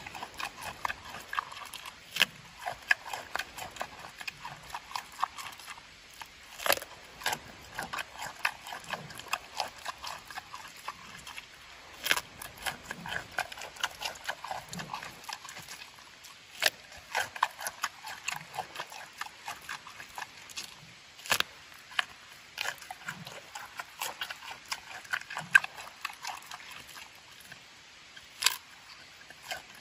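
Giant panda chewing pumpkin close up: an irregular run of chewing and smacking clicks, with a louder crunch about every five seconds.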